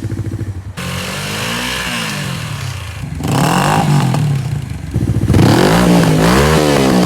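Motorcycle engine through a reverse-cone slip-on muffler. It idles briefly, then is revved three times, the pitch rising and falling each time, with a smooth, deep note.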